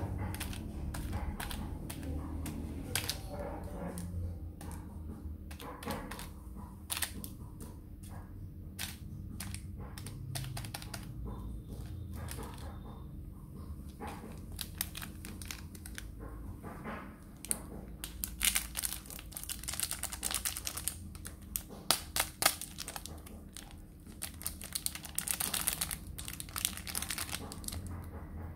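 Plastic candy wrappers crinkling and crackling as hands move and handle wrapped sweets. The crackles come in quick irregular runs and get louder and denser in the second half.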